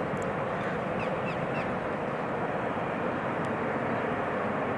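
Steady rushing noise of a jet airliner's engines across the airfield, with a bird giving four short, quick calls about a second in.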